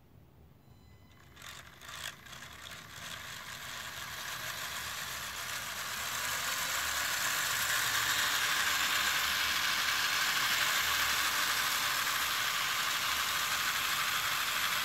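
LEGO Technic electric motor driving a fast gear train at full speed, a whirring, rattling mechanical sound. A couple of knocks come about two seconds in, then the whir builds for several seconds and holds steady.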